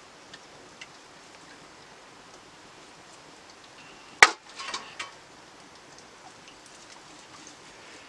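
One sharp metallic clink about four seconds in, then a second of lighter clinks and rattles, from steel bowls and a blade as raw meat is cut and sorted; otherwise a faint steady hiss with a few small ticks.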